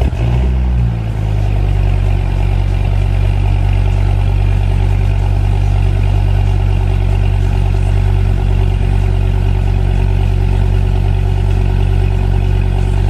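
Gen IV Dodge Viper's 8.4-litre V10 on a cold start, idling through its side-exit exhaust: the revs settle in the first second after it catches, then it runs at a steady, loud idle with a deep rumble.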